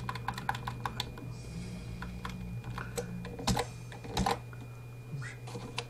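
Typing on a computer keyboard: a quick run of keystrokes at the start, then scattered keystrokes with a couple of louder clacks around the middle, over a steady low hum.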